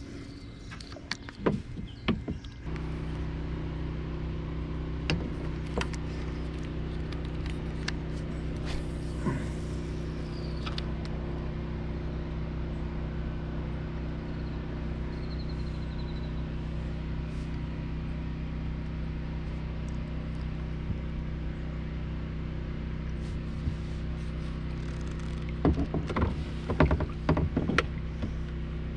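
A motor running with a steady, even hum that comes on abruptly about three seconds in, with a few light clicks and knocks near the end.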